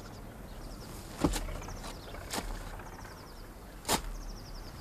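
Garden spades cutting into soil: three sharp strikes a second or so apart. A small bird twitters faintly twice in between.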